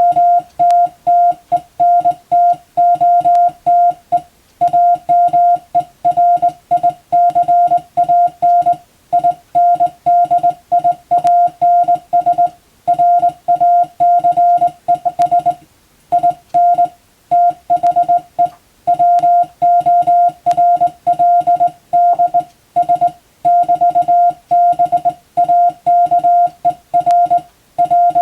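Morse code (CW) sidetone from a hand-worked telegraph key: a single steady mid-pitched tone keyed on and off in dots and dashes, with short gaps between letters and longer pauses between words. It is sending practice telegram text in Latin-alphabet Morse for radiotelegraph exam receiving practice.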